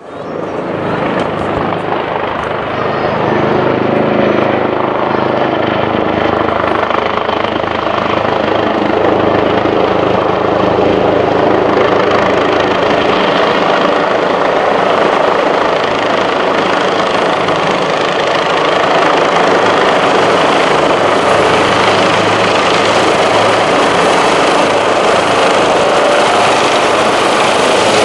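Rescue helicopter flying close overhead and hovering low: steady rotor beat with turbine whine. It swells in over the first second or two, and a thin high whine comes through more clearly in the later part.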